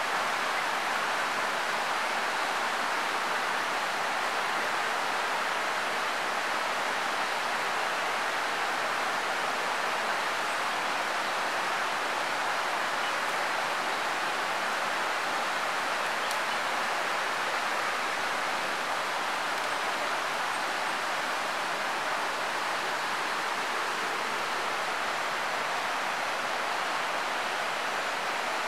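Steady rush of stream water, an even hiss with no breaks or single events standing out.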